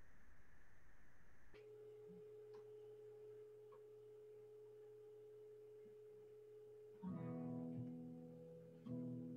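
Acoustic guitar heard faintly between songs: a single note held steady for several seconds, then a strummed chord about seven seconds in and another near the end.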